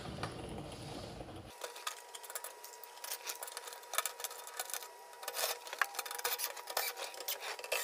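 Plastic underbody shield of a Ford F-150 being swung back into place and fastened by hand: a run of irregular clicks, taps and rattles.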